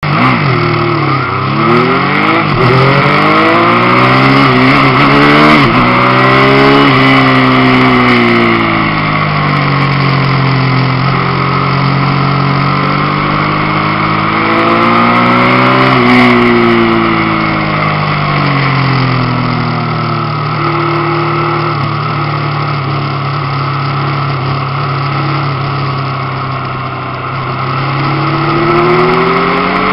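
Motorcycle engine heard from a camera mounted on the bike, accelerating hard through several upshifts, then dropping in pitch and pulling up again through the corners, with steady wind rush over the microphone.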